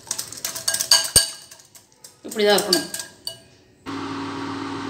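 Wire whisk clinking quickly against a glass bowl as it mixes a thick batter, a dense run of clicks over the first second or two. A voice is heard briefly in the middle, and about four seconds in a steady low hum starts.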